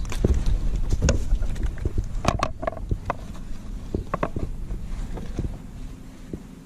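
Scattered knocks, taps and short rustles of a caught fish being handled and measured, with a cluster of louder clicks about two and a half seconds in, over a low rumble that fades toward the end.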